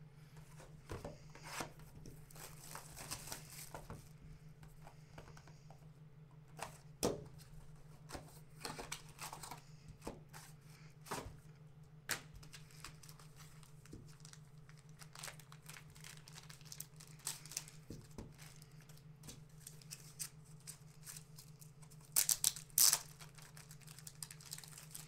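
Clear plastic wrapping crinkling and tearing as it is handled and pulled off a trading-card box, with scattered clicks from plastic card cases being handled. The loudest tearing comes in a quick cluster near the end.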